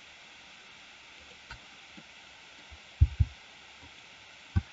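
Steady faint microphone hiss, broken by a faint click about a second and a half in and a few short, soft low thumps about three seconds in and just before the end, from the keyboard and mouse being worked at the desk.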